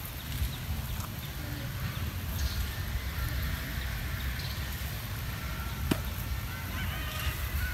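Steady low rumble of outdoor background noise, with a single sharp click about six seconds in and a faint high tone near the end.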